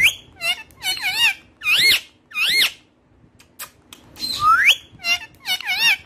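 Indian ringneck parakeet calling: a run of short, high whistled notes that glide up and down, in quick groups with a pause of about a second midway.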